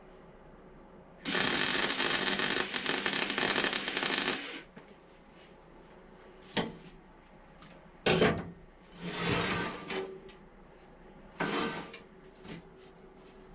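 Workbench sounds of small parts and tools being handled: about a second in, a dense rattling noise lasting about three seconds, followed by several short knocks and scrapes.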